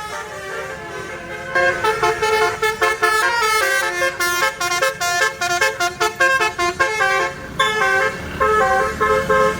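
Tour bus 'telolet basuri' multi-tone horn playing a quick melody of short stepped notes. It gets loud about a second and a half in and breaks off briefly near the end.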